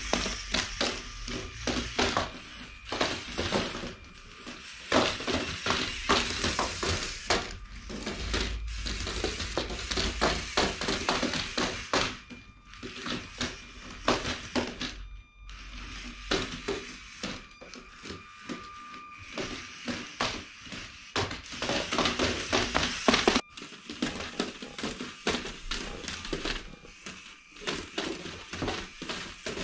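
LEGO Mindstorms 51515 crank-driven walker clattering across a wooden floor: a rapid, irregular run of light plastic taps and knocks from its many feet, over a faint steady motor whine.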